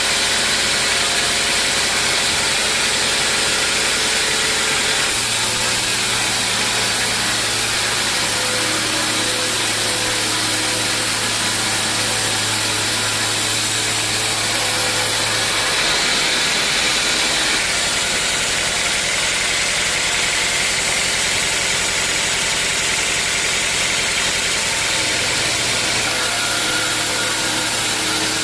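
Sawmill machinery running steadily, a loud even mechanical drone with a steady hum that changes in pitch at a few abrupt points.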